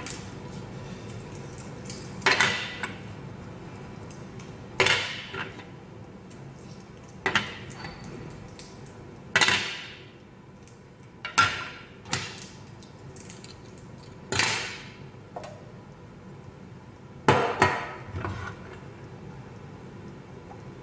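Green plastic blade cartridges of a hand-crank vegetable spiralizer being handled and set down on a wooden table: about a dozen separate knocks and clacks, a few seconds apart, some in quick pairs.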